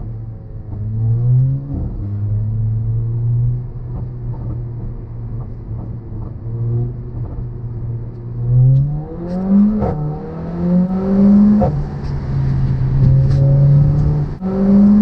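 Mercedes A45 AMG's 2.0-litre turbocharged four-cylinder with a decat exhaust, driven hard: the engine note climbs in pitch and drops back at each upshift, with a quick run of rising shifts about nine seconds in. Short sharp exhaust cracks come through in the last few seconds.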